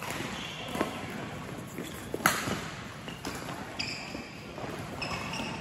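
Badminton rally: rackets striking the shuttlecock several times, the sharpest hit about two seconds in, with short squeaks from shoes on the court floor near the end.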